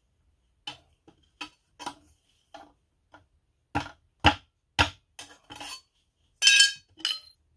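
Hammer striking a steel punch or chisel in a series of about a dozen light, sharp metal-on-metal clinks, roughly two a second, with a louder, ringing blow near the end.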